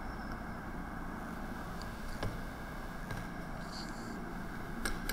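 Room tone of the recording: a steady low hiss with a faint hum, and two faint clicks, one about two seconds in and one near the end.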